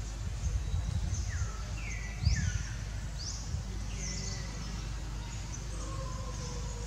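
Small birds calling in short, quick chirps that slide sharply downward in pitch, several a second for a few seconds, over a low steady outdoor rumble. A brief low thump comes about two seconds in.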